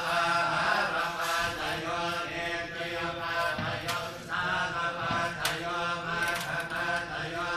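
A group of voices chanting Buddhist verses in Pali in a steady, droning recitation. Two faint sharp clicks sound partway through.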